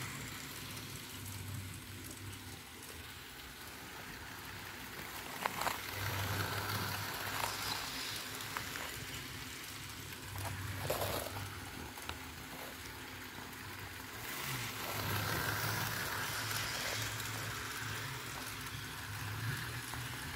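Electric model train, a steam-style locomotive pulling a string of freight cars, running around a circle of sectional track: a steady whirring rattle of motor and wheels with a few sharp clicks, growing louder and softer as it circles.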